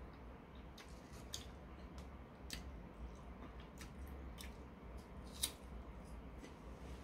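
Faint eating sounds: quiet chewing of cut fruit and scattered small clicks of a metal fork, with one sharper click about five seconds in.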